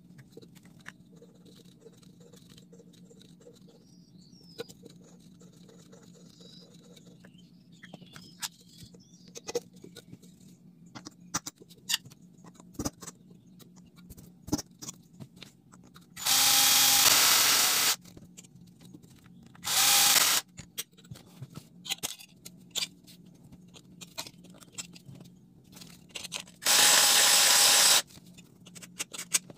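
Electric drill fitted with a small disc bit, running in three short bursts with a steady whine against the top of an aluminium soda can. Light clicks and taps from handling the cans come between the bursts.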